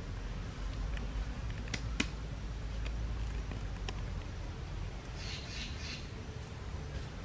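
Small wood campfire crackling, with a few sharp, spaced-out pops about two to four seconds in, the loudest about two seconds in, over a low steady rumble. A brief rustle follows about five seconds in.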